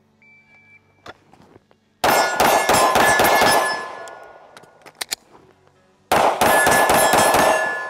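A short beep, then two fast strings of 9mm pistol shots from a Springfield Armory Echelon, each about a second and a half long and about four seconds apart, with a ringing tone under each string. A few clicks of a magazine reload come between the strings.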